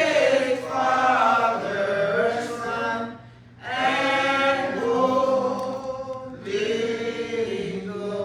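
Church choir singing a slow hymn in long, drawn-out phrases, with brief pauses between phrases about three seconds in and again past the six-second mark.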